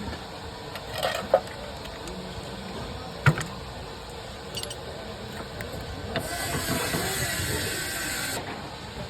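A few light clinks, then one sharp metallic knock, then a steady hiss lasting about two seconds that cuts off suddenly.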